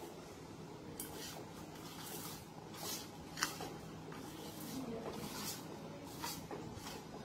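A hand mixing dry spice powders in a stainless steel bowl: a series of soft rustling, scraping strokes as the fingers work through the powder and along the steel.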